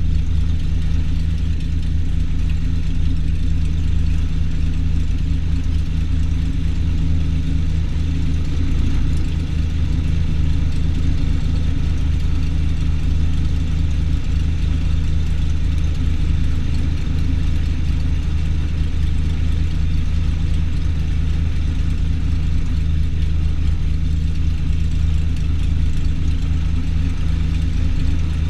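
Cessna 210's six-cylinder piston engine and propeller idling steadily with the aircraft stationary before takeoff, heard from inside the cabin: a low, even drone that does not change.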